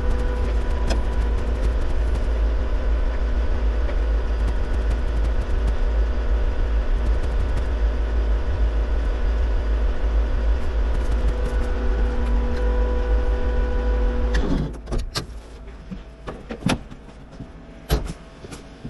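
An engine running steadily with a deep rumble and a fixed hum. It drops away abruptly about fourteen and a half seconds in, leaving scattered knocks and clicks.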